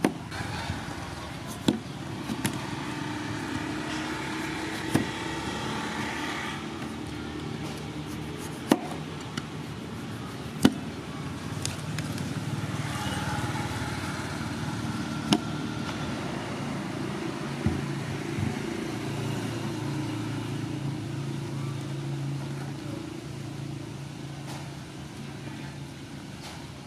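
A kitchen knife cutting and peeling a hard-skinned pumpkin: sharp clicks of the blade biting into the rind every couple of seconds, with scraping between them. A steady engine-like hum runs underneath.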